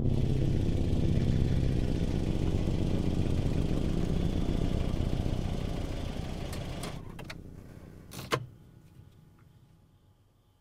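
A car engine running with a steady low rumble as the car comes closer, fading away over the last few seconds. A single sharp click or thump sounds about eight seconds in.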